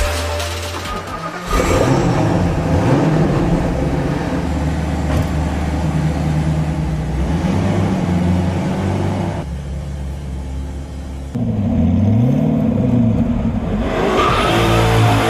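A supercar's engine running and being revved, its pitch stepping up and down, with a few quick rising-and-falling rev blips in the last few seconds.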